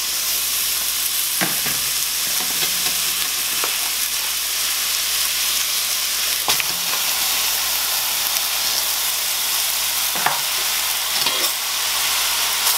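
Raw ground turkey sizzling as it goes into a hot stainless steel pan with no added fat, a steady hiss broken by a few brief knocks.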